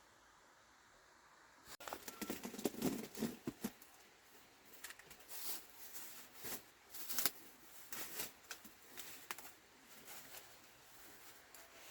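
Irregular rustling, scraping and light knocks, starting suddenly about two seconds in and coming in uneven clusters, loudest early and again about halfway through.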